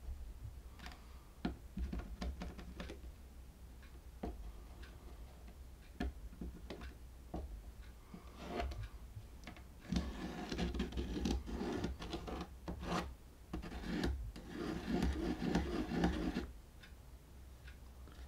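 Pencil scratching on plywood as a router base plate's screw-hole pattern is traced onto it, with small clicks and taps from the plate and tools being handled. The scratching comes in two longer runs over the second half.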